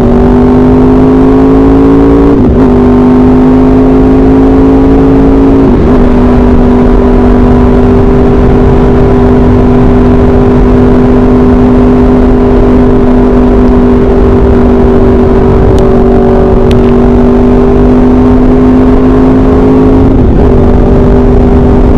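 Motorcycle engine with an SC-Project aftermarket exhaust, running loud and steady under way. The engine note rises slightly at first, then dips briefly about two and a half seconds in, again around six seconds in, and again near the end, holding an even pitch in between.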